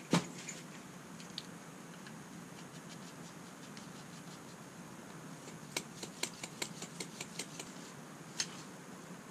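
Light clicking from a hand shock pump being handled at the air valve of a Fox Float RP23 rear air shock: one sharp click just after the start, then a quick run of about a dozen light clicks a little past halfway, over a faint steady hum.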